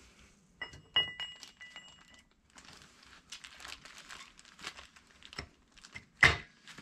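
A heated ring gear is handled and fitted onto a steel differential carrier. Metal clinks with a bright ringing in the first couple of seconds, then crinkling handling noise, and a single loud knock near the end.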